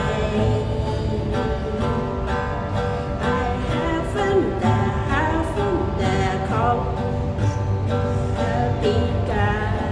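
Music: a gentle pop arrangement with acoustic guitar and a sung melody over a steady beat.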